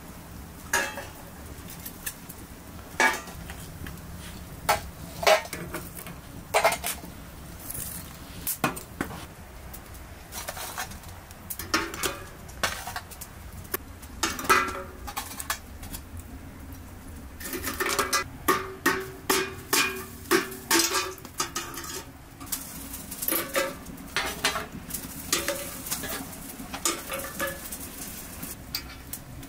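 Metal scraping and clinking as embers are scooped from a wood fire with a sheet-metal scoop and glowing charcoal is moved with tongs from a metal tray into a brass samovar. Separate sharp clinks, with a quick run of them a little past the middle.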